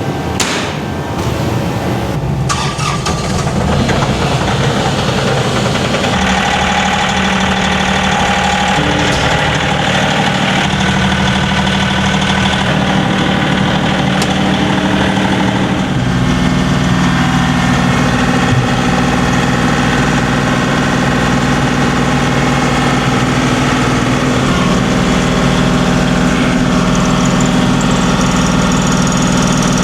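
A motor-vehicle engine running steadily, its note shifting a couple of times, with a few short knocks in the first couple of seconds.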